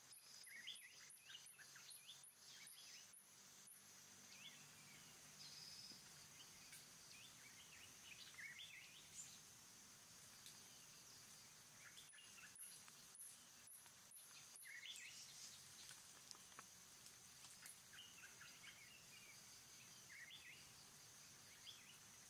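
Faint tropical forest ambience: a steady high insect drone with scattered short bird chirps. A run of evenly spaced ticks, about three a second, sounds near the start and again a little past halfway.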